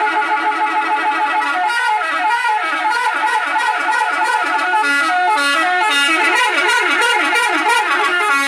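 Manually played telolet bus horn, a set of pitched air-horn trumpets, sounding a tune in imitation of the Scorpion Holiday bus's horn. It starts on a few held notes, then warbles quickly up and down from about two seconds in.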